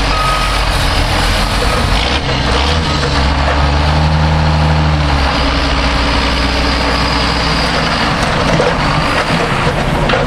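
John Deere 6920S tractor's diesel engine running as the tractor drives past close by, towing a bale chaser. The engine hum is steady and strongest in the middle.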